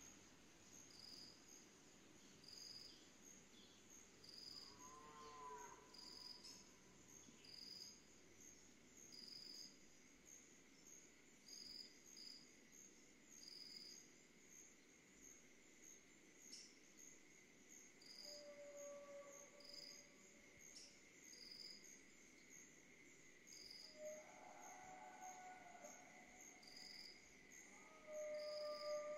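Faint insect chorus: crickets chirping at an even beat, roughly one chirp a second, over a steady high trill. A few faint, drawn-out animal calls come in the distance, the loudest near the end.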